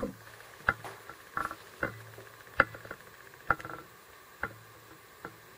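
Astro-Physics Mach2 German equatorial mount slewing at its 900 speed setting, its motors giving a faint steady hum. The dangling keypad cord slaps against the tripod leg in sharp taps, about one every three-quarters of a second, louder than the hum.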